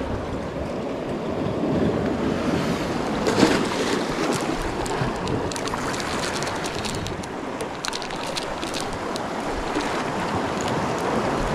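Sea surf washing against a rocky shore, with wind buffeting the microphone. Scattered small clicks and crackles from about three to nine seconds in.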